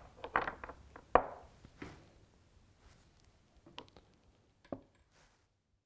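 Chess pieces knocking against one another and the wooden board as a hand moves them: a run of sharp clicks, the loudest about a second in, thinning out to a few scattered knocks and stopping about five seconds in.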